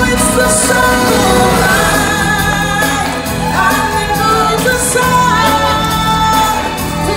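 Stage-show music with singing: voices hold long, wavering notes over a steady low backing.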